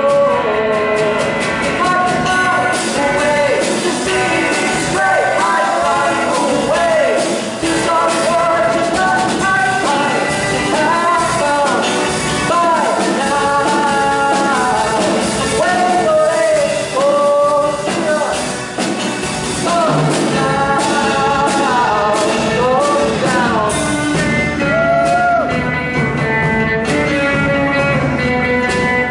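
Rock song played by a band, with no words sung: a lead line of bending, sliding notes carries the melody over the accompaniment.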